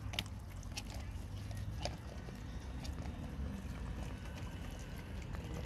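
A group of cats eating wet food off a concrete slab, with faint scattered clicks of chewing over a low, steady outdoor rumble.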